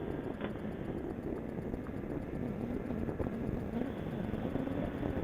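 Snowmobile engine droning steadily while riding along a trail, its pitch wavering slightly up and down over a low rumble.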